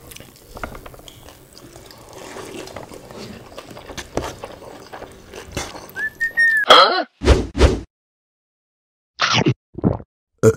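Faint eating sounds, fingers working rice and chewing with small clicks. About six seconds in, a short whistle rises and falls, then comes a run of loud, short sound effects broken by dead silence.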